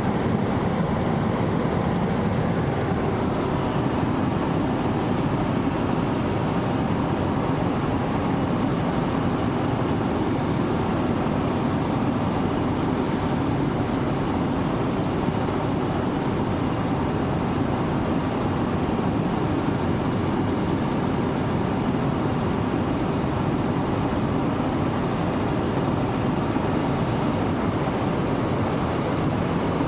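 Helicopter engine and rotor noise, loud and steady throughout, with a constant high whine over the low drone.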